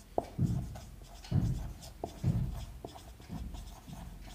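A pen writing: about four short strokes, with a few sharp taps of the pen in between.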